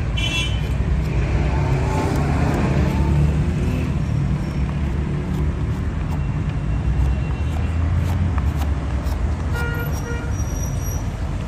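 Steady road traffic noise, a low rumble, with a short horn toot at the start and a brief high tone about ten seconds in.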